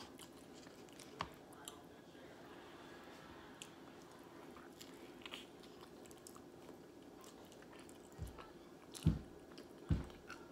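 Close-up mouth sounds of someone eating saucy bone-in buffalo chicken wings: small wet chewing and biting clicks over a faint steady hum. Near the end come two louder dull thumps, about a second apart.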